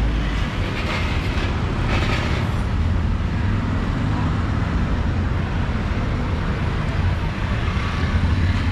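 Steady street traffic noise: a continuous low rumble of passing vehicles with general bustle over it.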